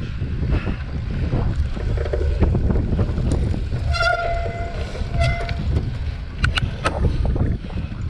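Wind buffeting an action camera's microphone and the rumble of a cyclocross bike riding over rough grass. About four seconds in, a short honking tone sounds twice, about a second apart, and a few sharp clicks come near the end.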